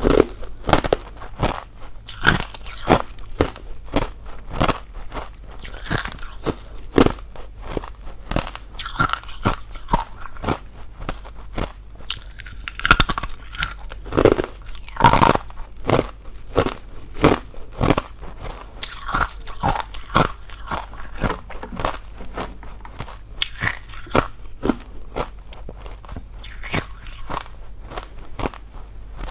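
Close-miked crunching of hollow ice being bitten and chewed: a steady run of sharp, brittle crunches, about two to three a second.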